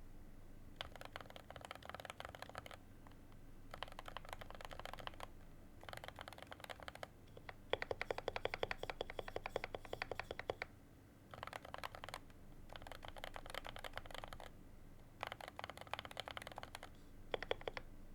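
Typing on a Keychron Q1 mechanical keyboard: bursts of rapid keystroke clicks lasting a second or three each, with short pauses between. The longest and loudest run of keystrokes comes in the middle.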